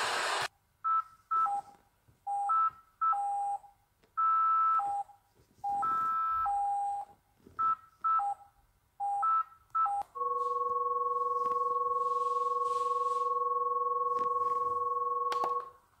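Electronic emergency alert signal: a run of clean beeps hopping between a higher and a lower pitch, some short and some held, for about nine seconds, then a single steady alarm tone held for about five and a half seconds that cuts off abruptly. The first half-second is the end of a loud noisy glitch from the alert before it.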